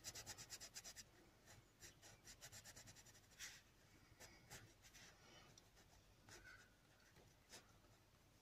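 Faint scratching of a white Chromaflow coloured pencil on textured paper: quick back-and-forth strokes for about the first second, then a few scattered single strokes.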